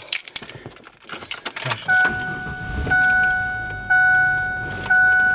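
Keys jingling, then about two seconds in the Ford Explorer's dashboard warning chime starts, a clear ding repeating about once a second, over a low engine rumble.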